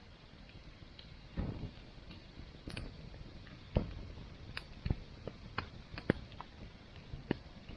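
Wood campfire crackling: irregular sharp pops and snaps, a dozen or so, over a soft low rush.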